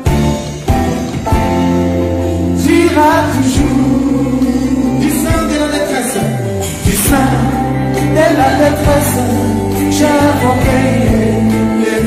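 Live gospel music: a band with drums and bass playing, with singing over it.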